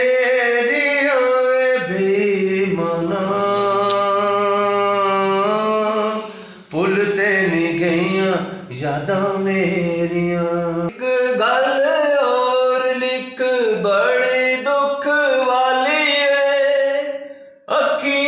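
A man singing a Punjabi song in long, wavering held notes with short breaths between phrases. Near the end another man's voice takes over.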